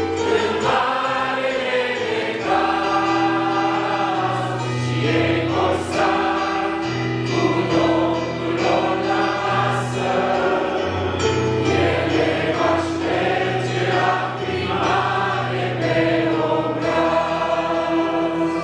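A small mixed group of men and women singing a Christian song in harmony, accompanied by an electric keyboard holding sustained bass and chord notes under the voices.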